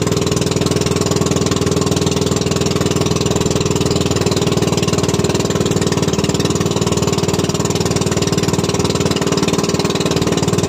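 Small fishing boat's engine running at a steady speed, a loud, even, rapid pulsing hum.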